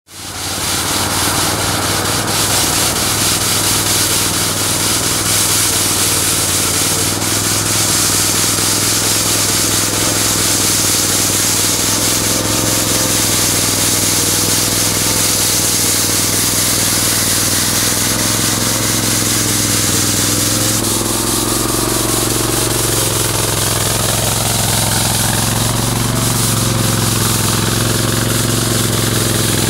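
Avant 225 compact loader's engine running steadily under a loud hiss from its front rotary sweeper brush scrubbing asphalt. The engine's tone shifts about two-thirds of the way through.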